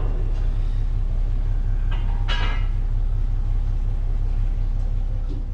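Paddle steamer's engine running with a steady low rumble while the boat comes alongside to tie up. A brief rushing noise sounds about two seconds in.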